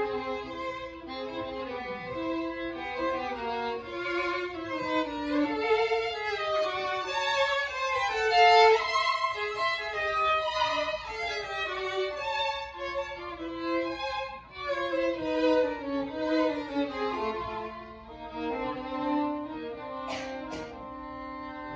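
A string quartet (two violins, viola and cello) playing live in a busy texture of short, overlapping bowed phrases, with some sliding pitches.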